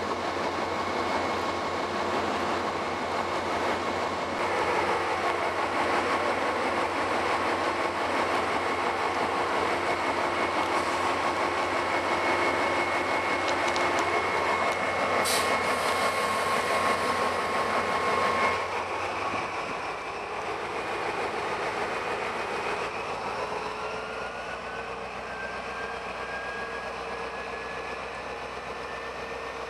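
Train running noise at a station: a heavy, steady din with a steady whine on top for the first two-thirds. Then it gets quieter, and an SNCF CC 72000-family diesel-electric locomotive moves off, its whine rising steadily in pitch as it gathers speed over the last several seconds.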